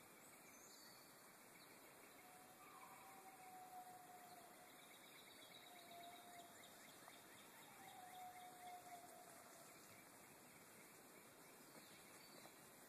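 Near silence: faint outdoor ambience, with three faint, drawn-out tones in the middle.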